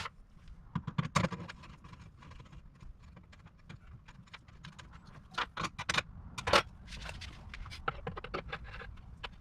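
Irregular metallic clicks and clinks of hand tools and small hardware as hold-down studs are threaded into rivet nuts and lock nuts are tightened, over a steady low hum. The clicks bunch together about a second in and again around the middle.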